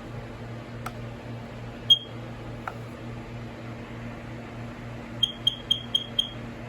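Smoke alarm being tested: one short high-pitched beep about two seconds in, then a quick run of five short beeps, about four a second, near the end. Two faint clicks and a steady low hum lie underneath.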